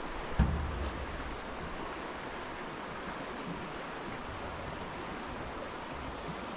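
Steady rush of flowing river water below a footbridge, an even hiss with no pitch. About half a second in there is a single short low thump.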